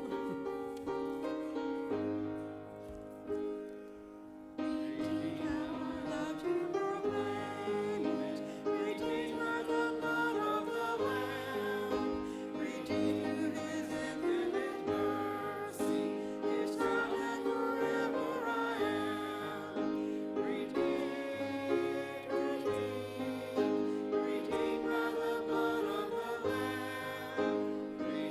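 A praise-and-worship song: instrumental accompaniment with voices singing, the music filling out about four and a half seconds in.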